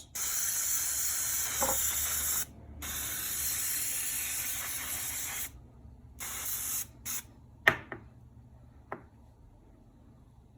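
Soybean oil cooking spray hissing as it coats chicken: two long sprays, then two short puffs. A sharp click and a fainter one follow.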